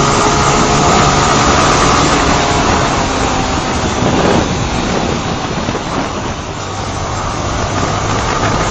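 Honda CBR125 motorcycle's small single-cylinder engine running at road speed, heard from the rider's seat with heavy wind rush on the microphone; the engine note dips briefly about halfway through and the sound eases a little before picking up again.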